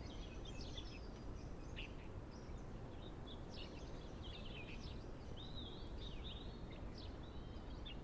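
Faint outdoor ambience: small birds chirping on and off throughout, over a low steady background rumble.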